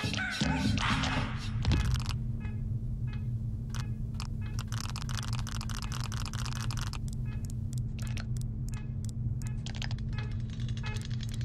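Steady low electrical hum of a jukebox's inner workings, with quick irregular clicks and ticks over it. A busy clatter ends in a knock in the first two seconds.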